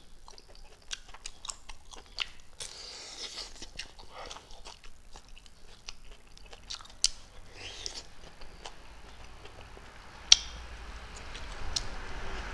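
Close-up chewing of fried chicken wing and rice on a collar microphone, with many short mouth clicks. A single sharp click about ten seconds in is the loudest sound.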